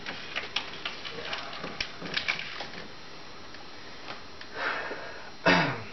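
Rubber radiator hose being twisted and worked off the thermostat housing neck of a Jeep 4.0 straight-six, with light scattered clicks and rubbing. There is a breath about four and a half seconds in, then a short grunt-like vocal sound near the end.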